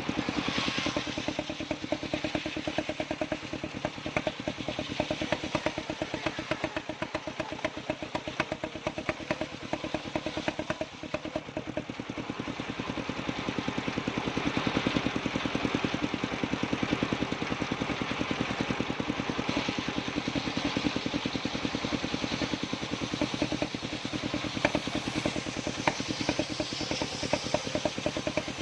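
Engine-driven circular sawmill running, with a rapid, even engine firing beat under a noisy wash from the saw. It grows somewhat louder about halfway through.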